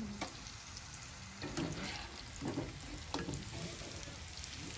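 Hot cooking oil sizzling steadily as battered food deep-fries, broken by a few sharp clicks.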